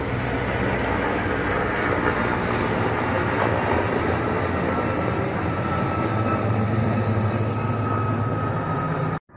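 Helicopter flying overhead: the loud, steady noise of its rotor and engine with a low hum underneath, breaking off abruptly near the end.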